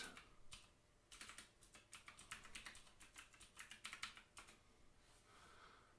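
Faint typing on a computer keyboard: a quick, uneven run of key clicks that stops about four and a half seconds in.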